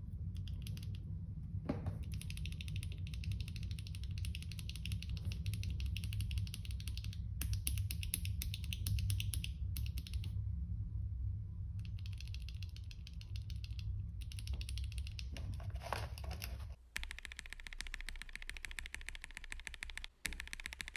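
Fast, continuous typing on a KBD67 keyboard fitted with lubed Akko Starfish switches: a steady patter of keystrokes. About seventeen seconds in, the low hum under the typing drops out, and the keystrokes go on.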